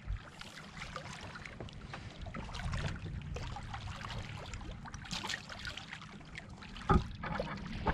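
Wind rumbling on the microphone over water lapping against a rocky riverbank, with light scuffs and clicks, and one sharp knock about seven seconds in.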